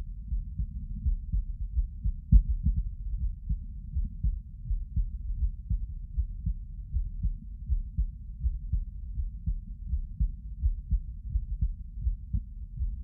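A person's heartbeat: a steady rhythm of short, low thuds with nothing above the low bass, and one louder thump about two seconds in.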